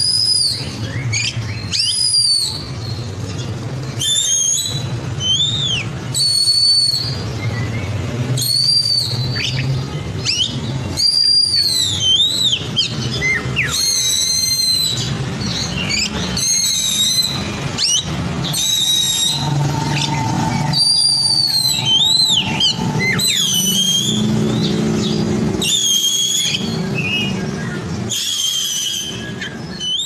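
Caged Oriental magpie-robin (kacer blorok) singing a long run of loud whistled phrases, one after another every second or two, each made of rising and falling sweeping notes. A steady low hum runs underneath.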